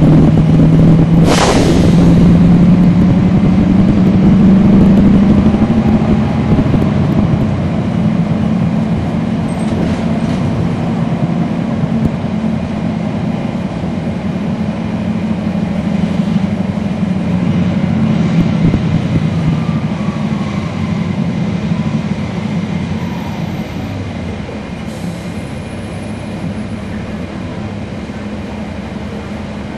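Cummins ISL9 diesel and ZF Ecolife six-speed automatic of a 2012 NABI 40-SFW transit bus under way, heard from inside the bus. The engine note climbs over the first few seconds, then eases off and the running sound slowly gets quieter. A single sharp clack comes about a second in.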